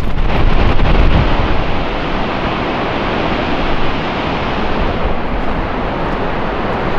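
Steady loud rushing roar of the Lower Falls of the Yellowstone, with wind buffeting the microphone, heaviest in about the first second.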